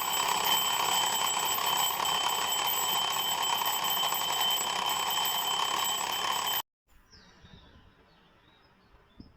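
An alarm clock ringing continuously, then cut off abruptly about six and a half seconds in; a few faint clicks follow.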